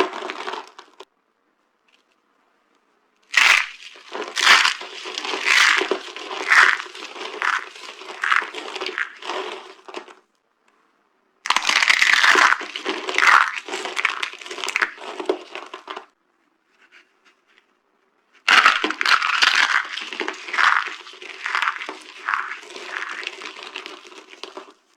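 Dry soap being crushed: dense crackling, crunching breaks in three long runs of several seconds each, with short silent pauses between them.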